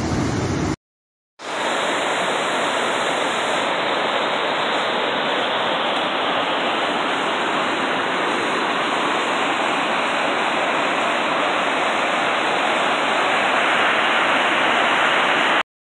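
Water rushing steadily down the concrete spillway of an overflowing dam, a dense continuous wash of white water. It breaks off briefly into silence about a second in, then resumes.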